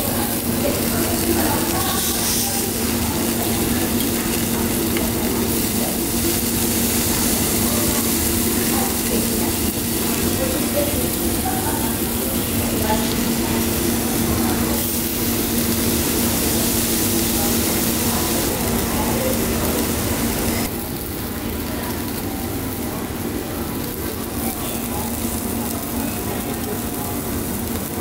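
Slices of marinated beef sizzling on a yakiniku tabletop grill: a steady hiss over a low hum, with faint restaurant chatter. The sizzle cuts off abruptly about two-thirds of the way through, leaving a quieter restaurant background.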